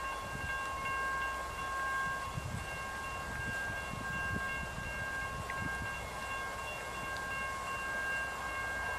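Railroad crossing warning bell ringing steadily, heard as a set of steady high tones, over a low rumble.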